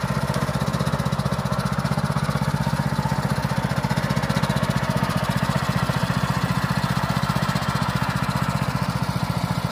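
Small walk-behind tractor engine running steadily, with a rapid, even pulsing beat.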